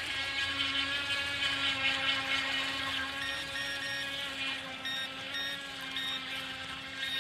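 JJRC radio-controlled boat's electric motor running with a steady high whine as it speeds over the water. From about three seconds in, a series of short electronic beeps sounds over it.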